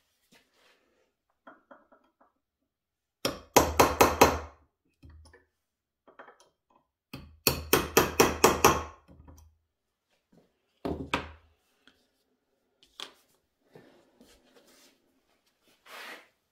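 Hammer tapping on a cast-iron bench clamp fitted to a wooden workbench: three runs of quick, sharp blows, the second the longest, with a few lighter knocks between.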